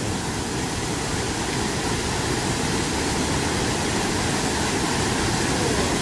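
A forceful 6 m waterfall plunging into a deep pool, heard up close: a steady, even rush of falling water.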